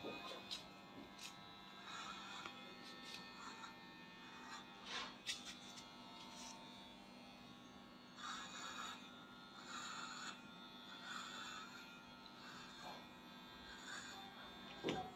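Electric hair clippers running with a faint, steady hum as they cut short hair at the back and sides of a head.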